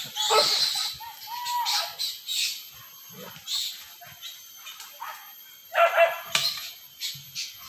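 Dogs barking and yelping in short, separate bursts, with the loudest cluster about six seconds in.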